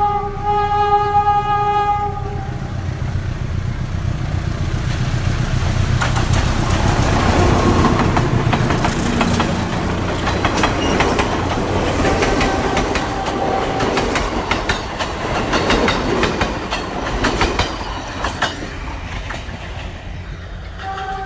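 Train horn sounding one steady note for about two seconds, then a passing train's rumble with the clickety-clack of wheels knocking over rail joints. The horn sounds again right at the end.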